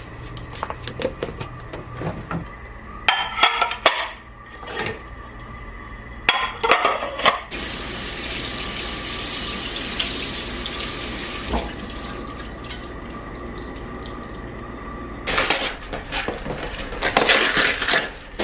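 Washing up at a kitchen sink: dishes and cutlery clattering, then the tap running steadily for about seven seconds, then more clattering of dishes near the end.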